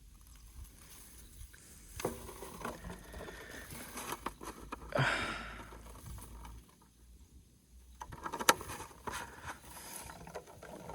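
Irregular rustling and scraping, with a louder burst about five seconds in, a short quiet spell, and then a sharp click.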